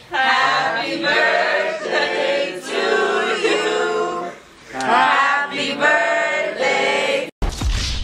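A group of people singing together in loose unison. About seven seconds in the singing cuts off abruptly and a deep, low boom begins.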